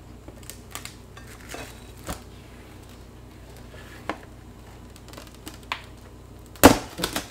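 Plastic cling wrap crinkling as it is pulled out and smoothed over a plate, faint scattered crackles over a low steady hum, with a louder burst of crinkling and handling noise near the end.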